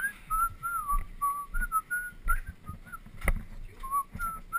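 A person whistling a wandering tune of short held and sliding notes, over the low rumble and bumps of mountain bikes rolling across paving, with one sharp knock about three seconds in.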